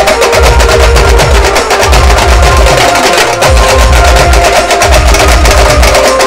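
Very loud music from a truck-mounted DJ sound system, with a heavy pulsing bass beat and a melody line, mixed with rapid drum strokes.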